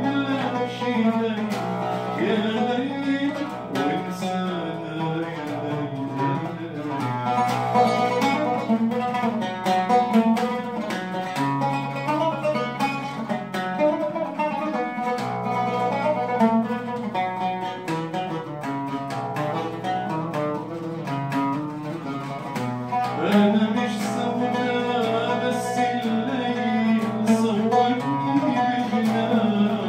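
Oud played solo with quick plucked runs over ringing bass strings, and a man singing along in Arabic style, his voice heard at the start and again in the last few seconds, with a stretch of oud alone in between.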